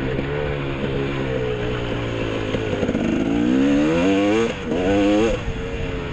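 Dirt bike engine under way, as heard from a helmet camera. It runs steadily at first, then revs up about halfway through, dips briefly, revs up again and falls back near the end.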